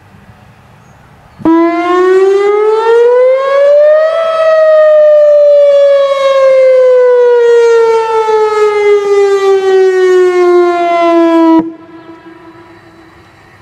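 Whelen Vortex R4 electronic outdoor warning siren sounding one cycle of its wail signal, the "noon test": the tone starts suddenly, rises in pitch over about three seconds, then falls slowly for about seven seconds, its loudness wavering slightly, and cuts off sharply near the end, leaving a much fainter tone at the low pitch.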